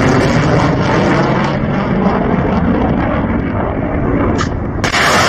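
Missile launch noise: the rocket motor of a climbing missile, a loud steady rushing noise that changes abruptly near the end.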